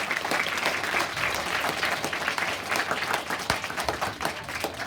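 Audience of schoolchildren and teachers applauding after a song, many hands clapping fast and densely, thinning near the end.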